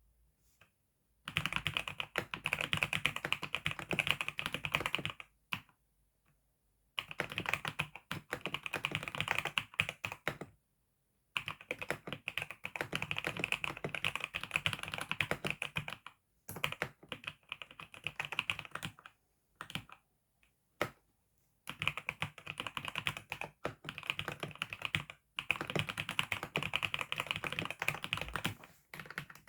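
Fast typing on a computer keyboard: dense runs of keystrokes lasting a few seconds each, broken by short pauses.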